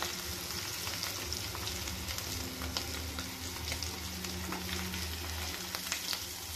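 Hot oil sizzling and crackling steadily as potato samosa rolls deep-fry, with a metal skimmer and slotted spoon stirring through the oil to lift the fried rolls out.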